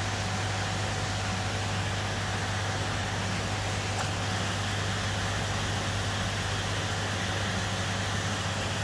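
Steady low electrical hum under a constant even hiss, typical of the pump and aeration running on a koi tank.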